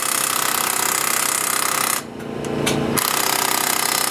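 Pneumatic impact wrench rattling in two bursts on the monster truck's axle hub: a burst that stops about two seconds in, and after a pause of about a second, a second burst.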